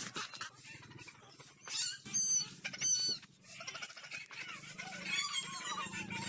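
Kitten mewing in short, high-pitched calls, loudest about two and three seconds in, with a run of quicker wavering calls near the end.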